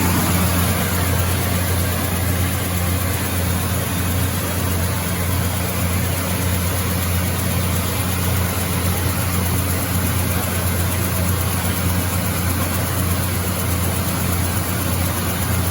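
Electric Shin Nong rice mill running steadily: a constant low hum over an even machine noise.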